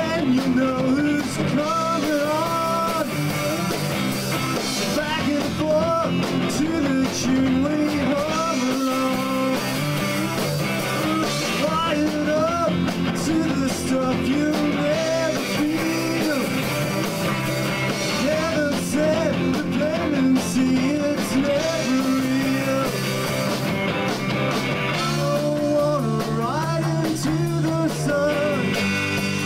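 Live indie rock band playing: electric guitars, bass guitar and drums, with a wavering melodic line over a steady full-band sound.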